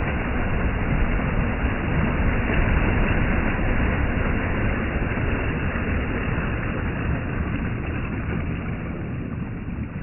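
Small sea waves breaking on a pebble beach and washing up the shingle in foam: a steady rush of surf that swells a couple of seconds in and fades toward the end.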